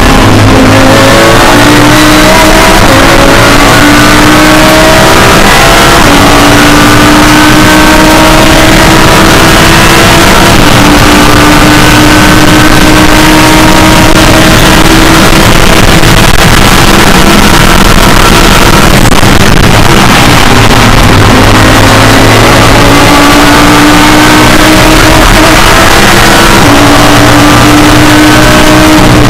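Audi R8 LMS GT3 race car's V10 engine, heard loud from inside the cockpit at speed. Its pitch climbs in quick steps through the upshifts, then rises slowly for a long stretch in a high gear. It drops back for a few seconds past the middle and then climbs again.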